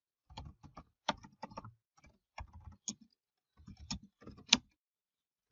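Typing on a computer keyboard: irregular runs of key clicks, with one sharper, louder keystroke near the end.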